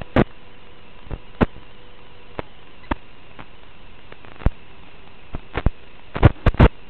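Sharp, irregular knocks and clicks over a steady hiss with a faint hum: a small camera being jolted and rattled on its mount as it moves and tips about. A quick cluster of knocks comes near the end.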